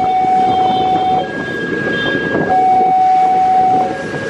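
Electronic level-crossing warning alarm sounding two alternating tones, a low one and a higher one, each held for about a second and a quarter, over a steady background rumble. It signals that a train is approaching the crossing.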